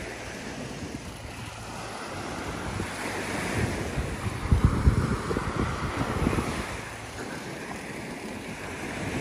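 Surf breaking on a beach, with wind buffeting the microphone in low rumbling gusts that are strongest about halfway through.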